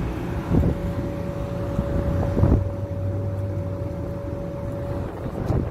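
Parked coach bus idling, with a low steady hum and a high steady whine that both stop about four to five seconds in. A few dull thumps come through, about two seconds apart.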